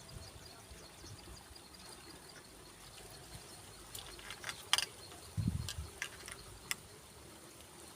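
Faint, steady chirping of insects, a rapid high-pitched pulsing. Around the middle come a handful of sharp clicks and one low thump.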